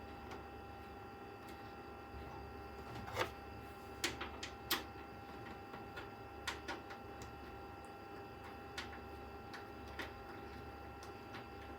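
Scattered light clicks and taps of hands handling PC case hardware and screws, over a faint steady electrical hum.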